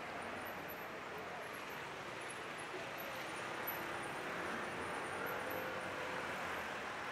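Steady city street ambience: an even hum of traffic.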